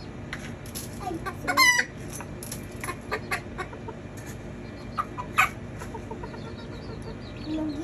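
Miniature kikiriki bantam chickens clucking in their cages, with a sharper call about a second and a half in. Scattered clicks and rattles of a plastic scoop in a tub of grain feed.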